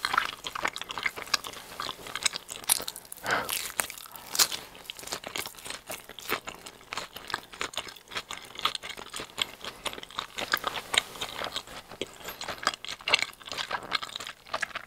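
Close-up chewing of a piece of giant cheese ball bread, with many quick, irregular crackles from the crust.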